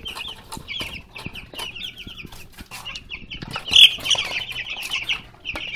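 A brood of young chicks peeping continuously in many short, high chirps, with scattered light clicks and one louder call a little under four seconds in.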